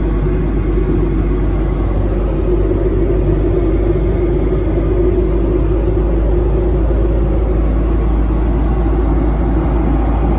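Steady hum and rush of an airliner cabin from the engines and air system, unchanging throughout.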